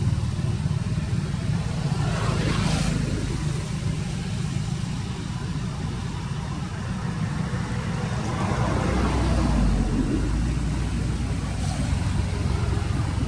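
Steady low rumble of background noise, swelling louder about eight to ten seconds in.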